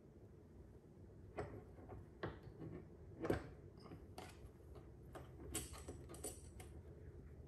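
Irregular light clicks and taps of a plastic key tether and its clip being handled and fitted on an ATV's handlebar console, the sharpest a little after three seconds in.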